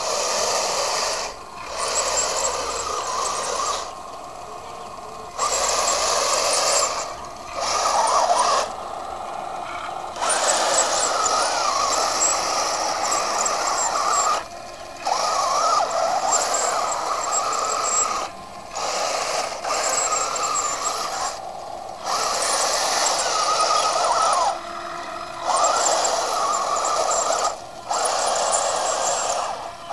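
Radio-controlled model tank driving in stop-start runs: a whirring motor-and-gear noise that comes on for one to four seconds at a time and drops back to a quieter hum between runs.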